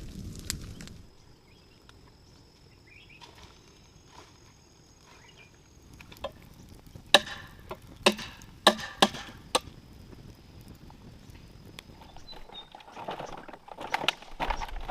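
A blade chopping wood: a quick run of about six sharp strikes about halfway through, with a faint steady high tone in the background and rustling near the end.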